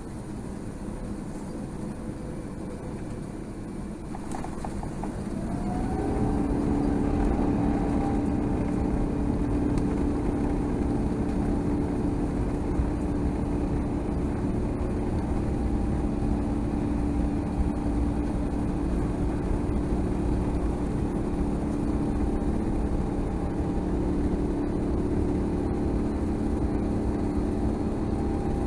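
Airbus A350-900's Rolls-Royce Trent XWB engines heard from inside the cabin. About five seconds in they spool up with a rising whine to takeoff thrust, then run loud and steady with a low rumble.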